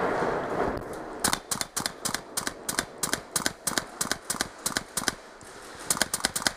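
Airsoft rifle firing rapid single shots as sharp clicks, about five a second for some four seconds. It pauses, then fires a quick burst of about five more near the end. A short rustle of movement comes at the start.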